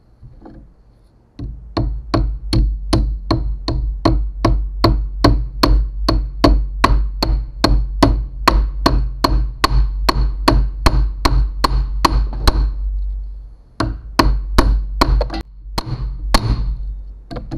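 Hammer blows on a steel car window regulator clamped in a bench vise, at a steady rate of about three a second, knocking a bent piece of the regulator back into place. About twelve seconds in the blows stop briefly, then a few more follow.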